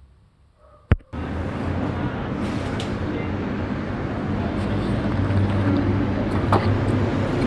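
A single sharp click about a second in, then a steady, loud running noise with a low hum sets in and continues.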